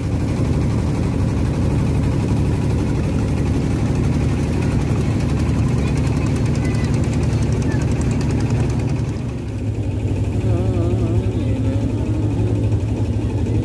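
A boat's inboard engine running steadily under way, a low, evenly pulsing hum.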